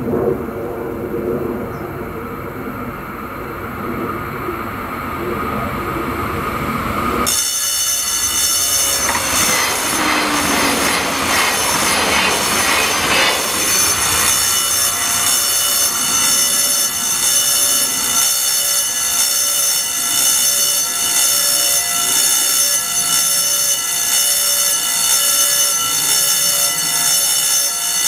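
A level-crossing warning bell starts ringing suddenly about seven seconds in and rings on continuously after a low rumble. It comes on with the "2 Züge" indicator, warning that a second train is approaching the crossing.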